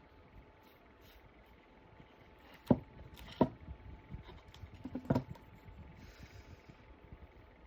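Three light knocks: two close together, the third about two seconds later.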